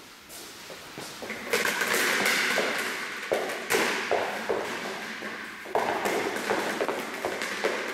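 Footsteps and a rubber ball dropped on a carpeted floor, bouncing and rolling, with several sharp thuds among a steady scuffing noise.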